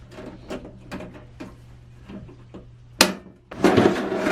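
Case of a diesel air heater being opened: small clicks and taps as the side clips are worked, a sharp knock about three seconds in, then a loud scraping rush as the cover is pulled off.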